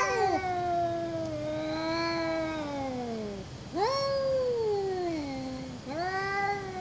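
Two cats caterwauling at each other in a face-off: long, wavering yowls of two to three seconds each, one after another, each rising at the start and sliding down at the end. These are aggressive threat calls between rival cats squaring up to fight.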